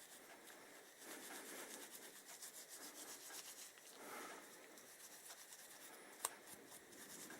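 Faint scrubbing of wire wool rubbed back and forth over a metal brake-pad backing plate to clean it, in repeated strokes. A single sharp click about six seconds in.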